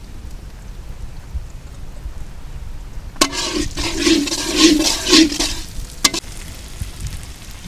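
Metal spatula stirring and scraping frying onion and tomato in a black iron kadai, with a sizzle, starting about three seconds in and lasting a couple of seconds. Shortly after, one sharp metallic clank.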